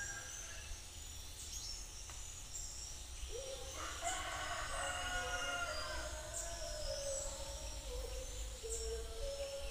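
A rooster crows once, a long call starting about three seconds in and lasting a couple of seconds. Small birds chirp high over a low background rumble.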